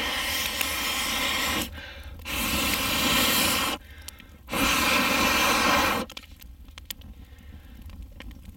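Three long breaths blown through a metal pocket-bellows tube into the base of a campfire, each a rushing blast of about a second and a half, fanning a fire that burns poorly on damp wood. After the third blast the fire crackles quietly.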